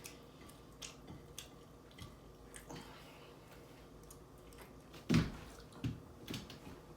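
A person chewing a double cheeseburger close to the microphone: scattered wet mouth clicks and smacks, with a brief louder sound about five seconds in.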